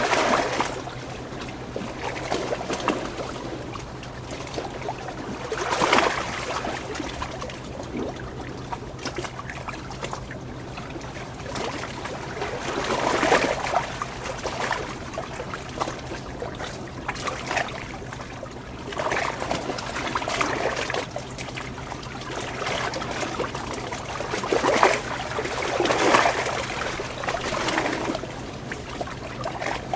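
Water trickling and running, with louder splashing swells every several seconds, over a faint steady low hum.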